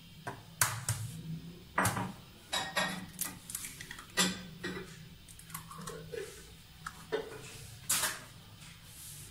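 A series of sharp taps and clinks on a glass mixing bowl as an egg is cracked and added to shredded mozzarella. The clicks come thickest in the first few seconds, with one more near the end.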